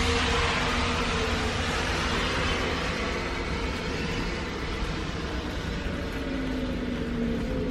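Outdoor warning siren sounding at a distance: a faint steady tone that comes and goes, under a steady hiss and low rumble.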